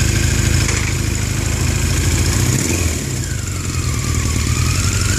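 Yamaha XJ700's air-cooled inline-four engine idling steadily through its exhaust, the level dipping briefly about three seconds in.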